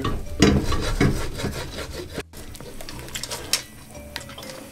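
Wooden spoon scraping and stirring sliced mushrooms across the bottom of a metal pot as they sweat down, a dry rasping scrape. After a cut about two seconds in, quieter stirring with a few light knocks of the spoon.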